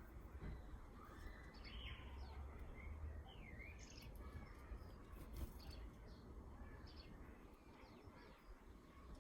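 Small birds chirping faintly and on and off, short high calls scattered through, with one quick down-and-up note a few seconds in, over a low steady rumble.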